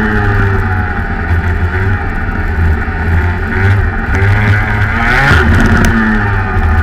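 Rotax Max 125cc single-cylinder two-stroke kart engine heard onboard at speed. Its revs rise and fall through the corners, with a climb and drop-off about five seconds in.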